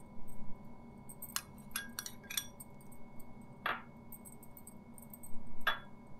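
A steel spoon spreading mayonnaise over a kulcha on a plate, its bowl clinking and scraping against the plate: a few light clicks, then two sharper clinks, one near the middle and one near the end.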